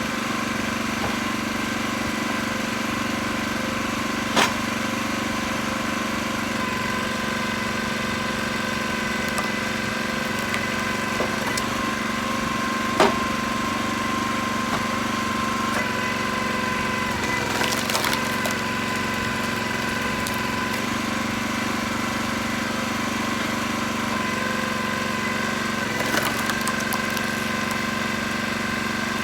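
Split firewood logs being unloaded and dropped, with two sharp wooden knocks, over the steady hum of an idling engine.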